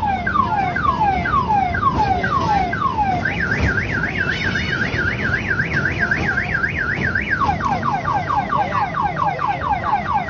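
An electronic siren cycling through its patterns. First it makes falling sweeps about twice a second, then from about three seconds in a fast warble, then from about seven seconds in quicker falling sweeps. A steady low background din runs underneath.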